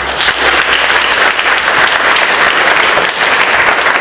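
Audience applauding, starting suddenly and going on steadily with dense clapping.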